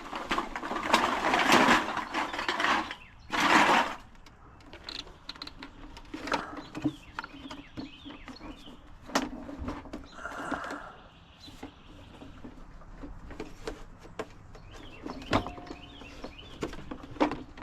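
Scrap pots and pans clattering as they are tossed onto a pile, loudest in the first few seconds, followed by scattered knocks and handling noise.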